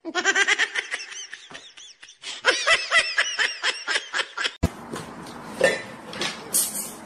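Rapid, high-pitched laughter in two runs of quick pulses, broken off by a sharp click a little over halfway through. After the click there is low background noise, one short burst and a brief hiss near the end.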